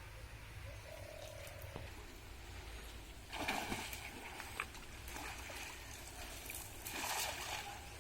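Water splashing or sloshing twice, a short burst a little over three seconds in and another about three seconds later, over a steady low rumble.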